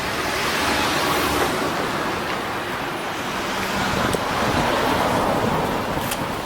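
Road traffic passing close by: two swells of tyre and engine noise, the first about a second in and the second around the five-second mark, with a couple of faint clicks.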